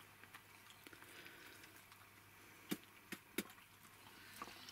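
Quiet room with three faint, sharp clicks close together a little past halfway, small knocks of the kind made at a table during a meal.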